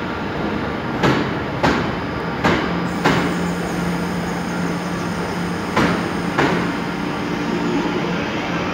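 Class 323 electric multiple unit pulling away at low speed, its wheels knocking over rail joints in pairs, three pairs of knocks in all. A steady hum comes in about three seconds in and carries on under the knocks.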